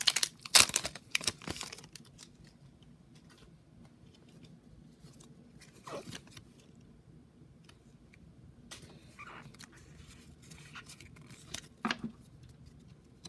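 Foil Pokémon booster pack crinkling and tearing open for the first two seconds, then soft rustles and a few light clicks of the trading cards being sorted through by hand.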